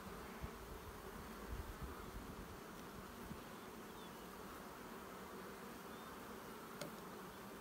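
Honeybees buzzing steadily around an opened hive, with a couple of soft knocks in the first two seconds.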